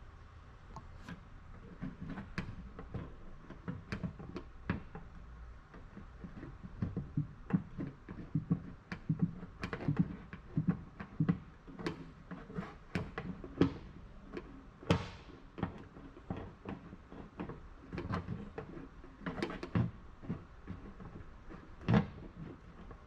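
Paintless dent repair tools working a car door's sheet metal: irregular light taps, clicks and knocks, about one to three a second, as the crease is worked out.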